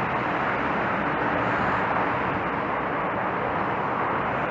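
Steady roar of road traffic on the road below.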